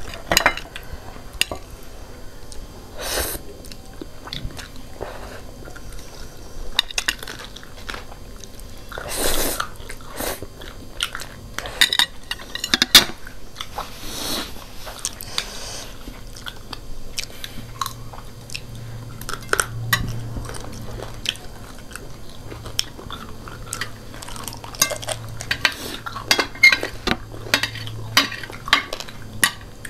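Close-up eating sounds: chewing and biting on fried chicken feet and instant noodles, with chopsticks clicking against china plates and scattered short clicks throughout.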